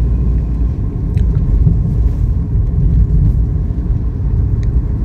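Steady low rumble of a 2015 Toyota Yaris 1.5 on the move, heard from inside the cabin: tyre and engine noise. A couple of faint ticks sound about a second in and near the end.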